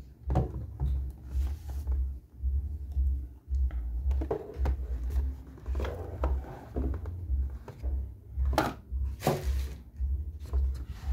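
Cardboard clipper box and its plastic tray being handled, giving scattered light knocks and rustles, the sharpest a little past the middle and again soon after, over a low irregular rumble.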